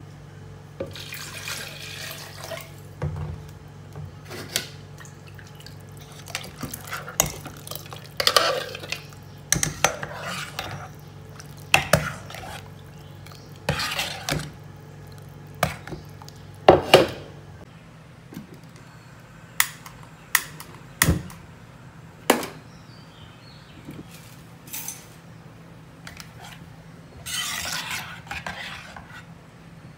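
Metal ladle stirring a thick soup in a ceramic pot, with irregular sharp clinks and knocks against the pot and a few longer scraping strokes.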